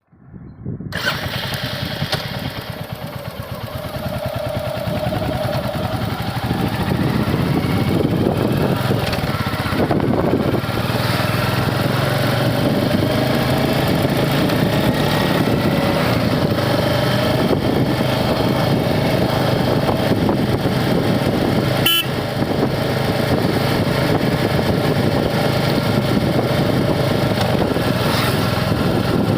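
Royal Enfield Hunter 350's single-cylinder engine and exhaust running. The sound starts within the first second, grows louder over the first several seconds, then holds steady. A brief click comes about two-thirds of the way through.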